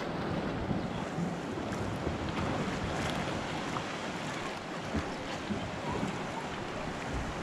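Sea water washing against shoreline rocks, a steady surf hiss, with wind on the microphone and a few faint clicks.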